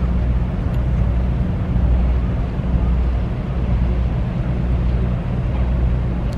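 Large ships' diesel engines giving a low, steady drone across the harbour.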